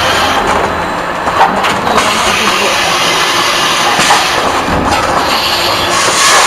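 Steady, loud running noise of a train moving along the rails.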